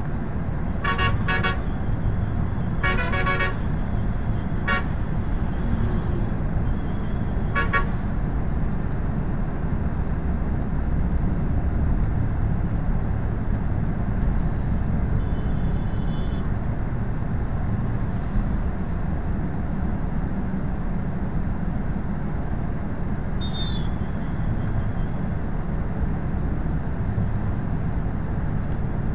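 Steady low engine and road rumble heard from inside a moving long-distance bus. Short vehicle horn toots sound several times in the first eight seconds, with two fainter horn tones later on.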